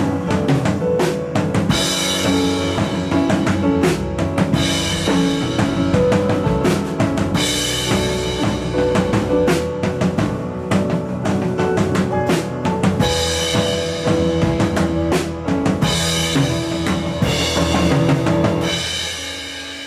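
Live band playing an instrumental passage: a drum kit with bass drum, snare and repeated cymbal crashes under sustained chords. It eases off near the end.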